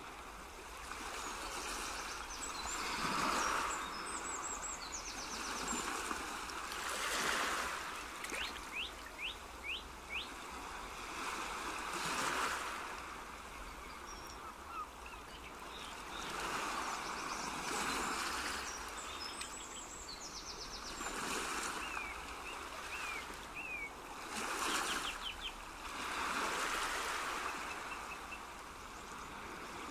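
Outdoor nature ambience: birds chirping in quick series over a rushing noise that swells and fades every two to three seconds.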